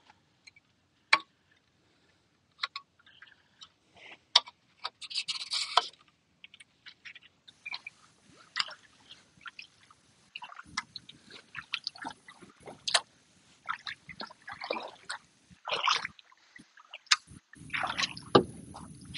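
A few scattered clicks and knocks, then kayak paddle strokes on calm water: the blades dip and splash and water drips off them, with a faint steady high hiss behind.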